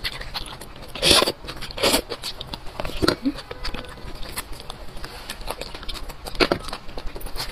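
Close-up eating sounds of beef bone marrow: wet mouth clicks, smacking and sucking at the bone, with louder slurps about one and two seconds in and again near the end.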